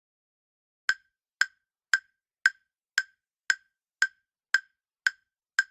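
Countdown-timer tick sound effect: ten short, identical ticks, evenly spaced at about two a second, starting about a second in.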